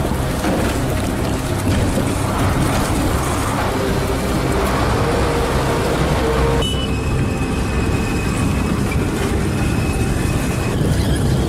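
Engines of armoured military vehicles, including an eight-wheeled armoured personnel carrier, running as they drive. About two-thirds through, the sound changes abruptly to a steadier engine note with a faint thin whine.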